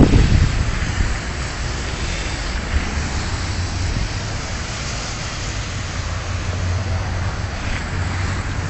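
Wind buffeting a mobile phone's microphone: a steady low rumble under a hiss, with a stronger gust right at the start.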